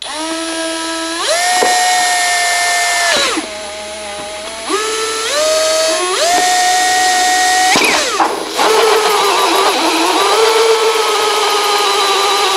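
Cordless drill with a 2-inch hole saw cutting a hole through a door panel. The motor whine steps up in speed, stops about three seconds in, then spins up again in steps. After about eight seconds it drops lower and rougher as the saw bites into the panel.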